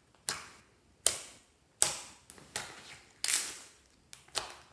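Fingers pressing and folding layered glossy slime, squeezing out trapped air: about six sharp pops, each fading quickly, spaced a little under a second apart.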